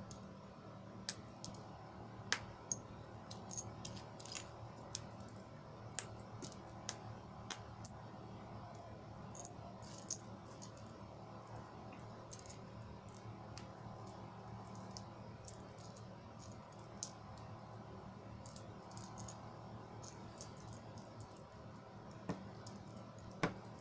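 Small pieces of cut mirror glass clinking and clicking against each other as they are picked up and gathered in the hand: scattered light taps, more frequent in the first half.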